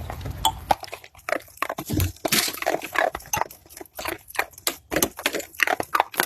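A pet animal making a quick run of short, irregular noises.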